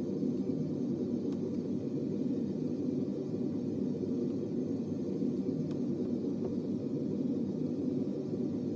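A steady low rumbling noise, unchanging throughout, with a few faint clicks.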